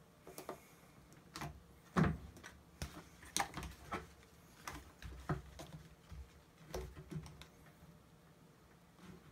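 Irregular clicks and knocks of a knife cutting small plastic pieces off a car door panel's molding and of the plastic being handled, the loudest about two seconds in.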